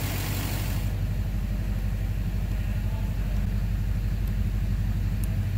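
2009 Duramax LMM 6.6 L V8 turbodiesel idling steadily, a low, even rumble; a hiss over it cuts off about a second in. The engine carries an intermittent knock that the owner finds still there after a new torque converter and billet flexplate, a suspected injector knock or cracked flexplate.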